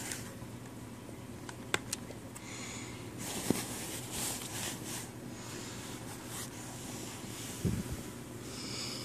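A small screwdriver driving screws back into a laptop's case: a few sharp clicks and taps of the driver and screws on plastic, over a steady low hum and soft hissy breaths.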